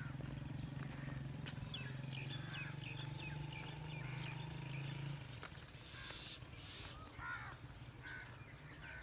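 Small birds chirping over a steady low hum, which stops about five seconds in.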